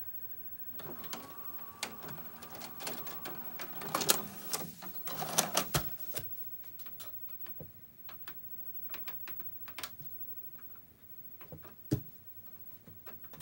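The tape mechanism of a Panasonic PV-M1323 TV/VCR combo whirring and clicking as it unthreads and ejects a VHS cassette, with a faint motor whine. This is followed by scattered clicks and taps of the plastic cassette being handled and set down, and a sharp click about 12 seconds in.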